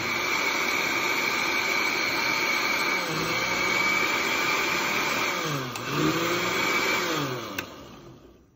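Countertop blender motor running at full speed, puréeing a green chutney of coriander, chillies, garlic and vinegar: a loud, steady whir with a high whine, its pitch dipping and rising a few times past the middle. Near the end a click, and the motor winds down.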